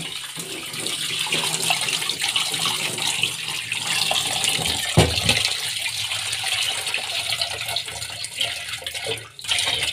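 Kitchen tap running into a plastic colander of fresh chhena curds over a steel sink, splashing as the curds are rinsed by hand. A dull thump about halfway through.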